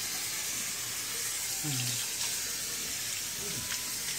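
Hand-held sink sprayer running steadily, water spraying onto a small dog and splashing into the sink as she is rinsed.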